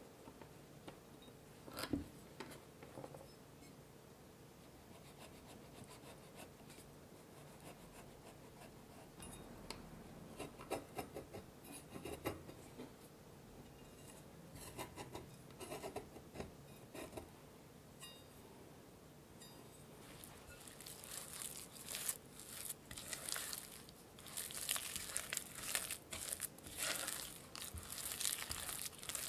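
A knife on a wooden cutting board splitting and cutting a vanilla bean: light taps and short scrapes. About twenty seconds in, this gives way to a spatula mixing mashed sweet potato in a glass bowl, a louder, continuous run of sticky scraping and smacking.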